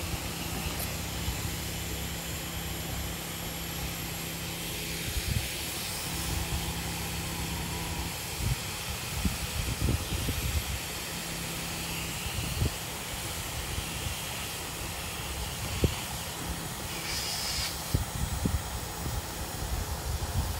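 Electric inflation blower running steadily, a constant hum with rushing air as it fills the inflatable. Wind buffets the microphone with irregular low rumbles.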